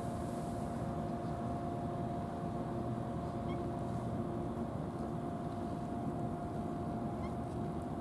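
A steady mechanical drone: a constant mid-pitched hum over low rumbling noise that does not change.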